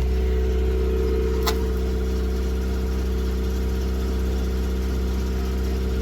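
Ford P100 pickup's Pinto four-cylinder engine idling steadily in reverse gear, driving a jacked-up rear wheel that spins freely. A single sharp click comes about one and a half seconds in.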